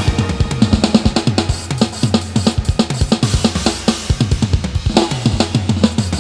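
Music: a drum break of rapid kick, snare and cymbal hits, with the deep sustained bass dropped out.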